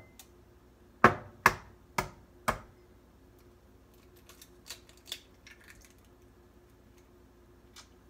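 An egg tapped four times, about half a second apart, against the rim of a small glass bowl to crack the shell, followed by a few faint clicks as the shell is pulled open.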